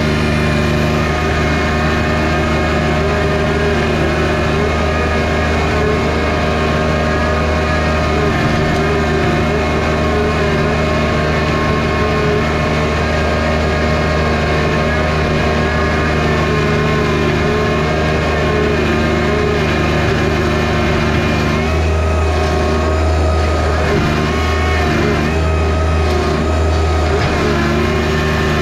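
John Deere 1025R compact tractor's three-cylinder diesel engine running steadily while pulling a subsoiler. About 22 seconds in, its sound changes, the low rumble growing stronger.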